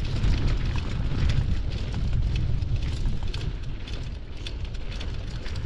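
Wind buffeting the microphone on a mountain-bike descent, a steady low rumble, with tyres crunching over a dirt and gravel track and the bike rattling in many small clicks.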